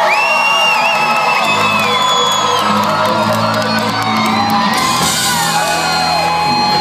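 Live rock band playing electric guitar and bass with sustained low notes, while the audience cheers with loud whoops and high-pitched screams over it.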